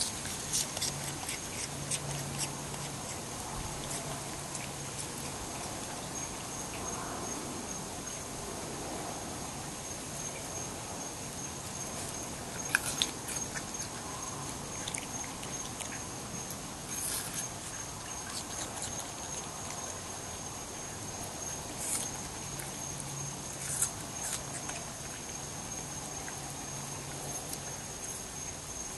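Raccoon eating apple pieces: scattered sharp clicks and crunches as it handles and chews the fruit, a few louder than the rest, over a steady high insect trill.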